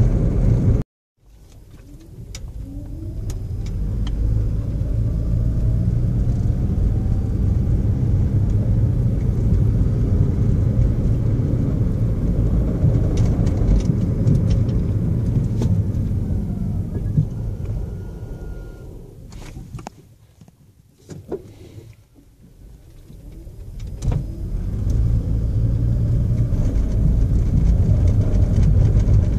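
2010 Toyota Prius hybrid driving stop-and-start: a low rumble builds as the car pulls away, runs steadily, fades almost away around twenty seconds in as it slows to a stop, then builds again as it pulls off.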